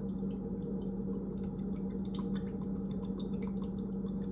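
Evaporated milk draining out of an opened can in small scattered drips, over a steady low hum.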